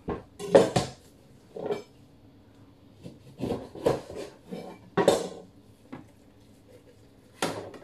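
A knife and a metal tray clinking and knocking in several separate short clatters, the loudest about half a second in.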